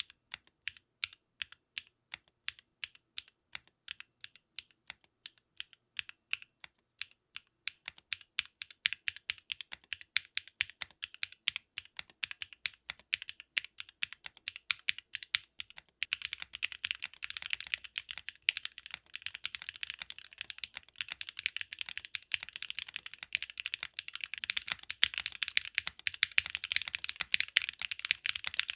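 Typing on a custom mechanical keyboard with Namazu linear switches, an aluminium half plate and PBT keycaps. It starts with slow, separate keystrokes, picks up speed about a third of the way in, and turns into fast, continuous typing a little past halfway.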